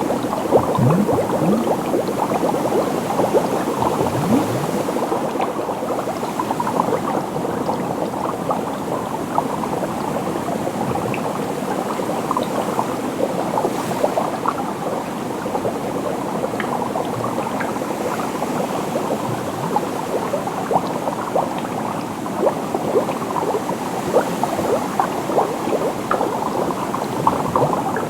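Water bubbling with a dense, steady stream of small bubbles popping and gurgling, and a few short rising bubble glides about a second and about four seconds in.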